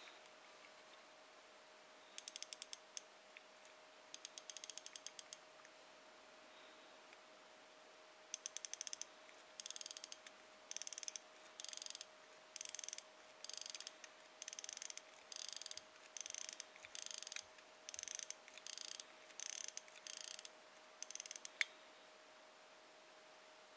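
Crown of a c.1900 minute-repeater pocket watch being turned to wind a mainspring: bursts of fast fine ratchet clicks as the click pawl rides over the barrel's ratchet wheel, one burst per turn. Two short runs come first, then a regular series of about fifteen turns roughly a second apart.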